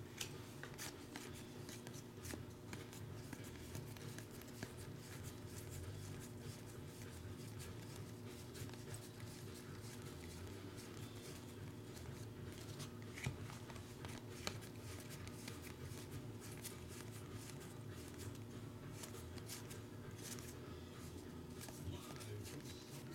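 A stack of glossy Topps Star Wars trading cards being flipped through by hand, cards sliding and ticking against each other in faint, scattered clicks over a steady low hum.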